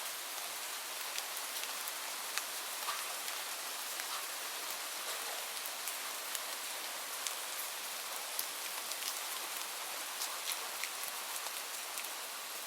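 Light rain falling steadily, an even hiss with many separate drops ticking on a hard surface.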